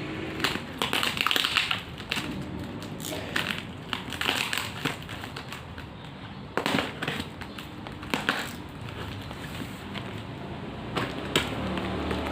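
Diecast toy car packaging being handled and opened: irregular crinkles, clicks and taps of plastic and cardboard.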